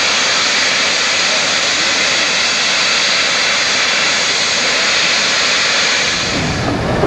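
Steam locomotive letting off steam in a loud, steady hiss, which fades near the end.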